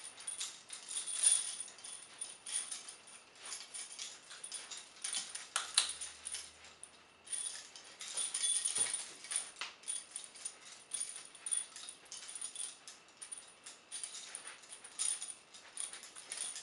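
Vintage steel prisoner shackles (handcuffs, connecting chain and leg irons) jangling and clinking irregularly as the wearer moves, with a few sharper clinks of metal on metal.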